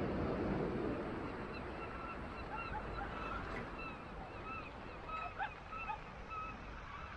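A flock of birds calling, many short calls a few per second, starting about a second and a half in, over a steady rushing background.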